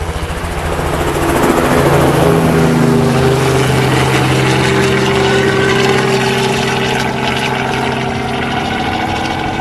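Demolition derby car engine idling close by, growing louder over the first two seconds with a slight change in pitch, then running steadily.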